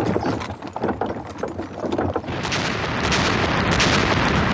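Battle sound effects: a rapid, irregular crackle of gunfire, then from about two seconds in a long, loud rushing roar of explosions.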